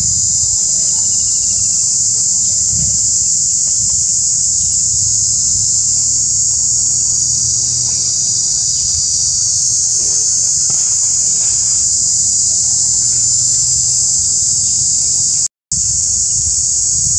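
Loud, steady, high-pitched insect chorus droning without a break from the trees, with a faint low rumble beneath it. The sound drops out completely for a moment about a second and a half before the end.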